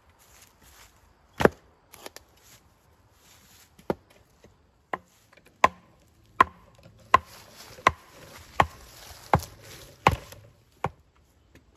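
Hatchet striking the top of a wooden fence post, driving it into the ground: a few scattered knocks, then an even run of blows, a little over one a second, from about halfway through.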